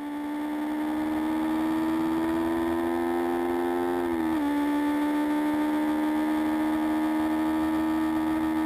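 Kawasaki Ninja 250R's parallel-twin engine running steadily at speed over a rush of wind noise. Its pitch creeps up slightly, then drops quickly about four seconds in.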